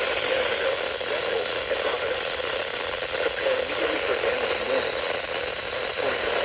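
Radio static: a steady hiss of poor reception, with a faint, unintelligible voice buried in the noise.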